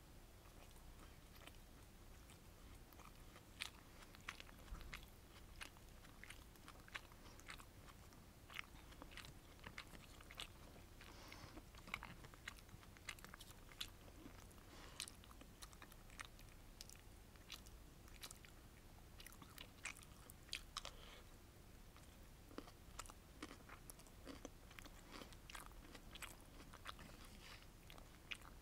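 Faint, close-miked chewing and mouth sounds of someone eating sweet and sour battered fish with rice, made of many small scattered wet clicks and ticks.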